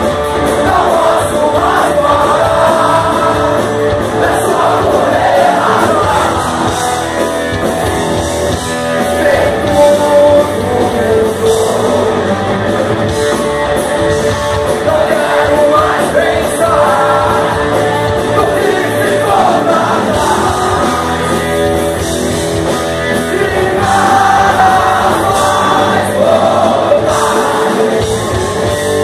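Punk rock band playing live and loud: distorted electric guitars, bass and drums with singing.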